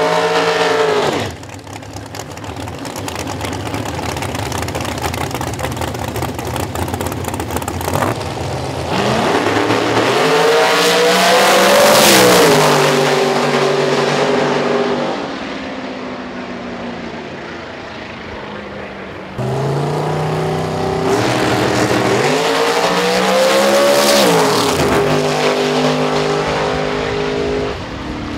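Drag race cars making full-throttle passes down the strip. The engine sound climbs in pitch to a peak and falls away, twice, with abrupt jumps in sound between passes.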